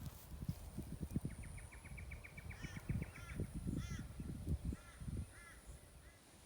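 Birds calling across open farmland: a fast chattering run of short notes, then a string of short arched calls every half second or so, with wind buffeting the microphone.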